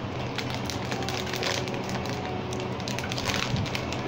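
Plastic candy bag rustling and crinkling as it is handled, with clusters of small crackly clicks.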